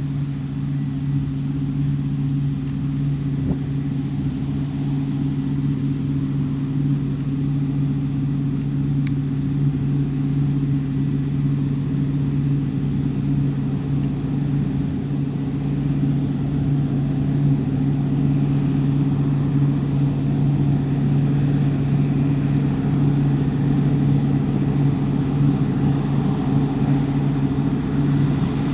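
Heavy farm machinery's diesel engine running at a steady, even drone, growing gradually louder as it draws nearer.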